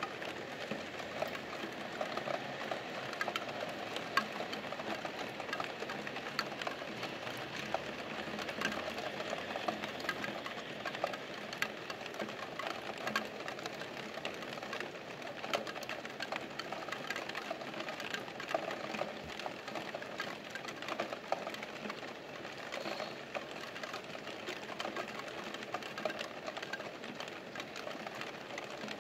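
Steady rain: an even hiss of falling rain thick with the sharp ticks of single drops striking close by, with no lull.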